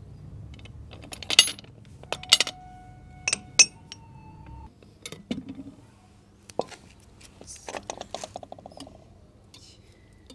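Sharp metal clinks and knocks as a pressure cooker is opened: a spoon works at the lid and the lid is lifted off, one knock leaving a brief ringing tone about two seconds in, then a quick run of small clinks as a ladle goes into the pot.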